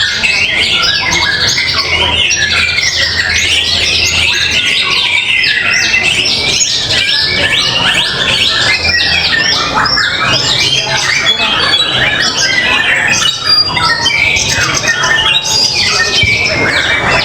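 Many caged songbirds singing at once in competition, a dense, loud, unbroken tangle of fast chirps, trills and whistled phrases.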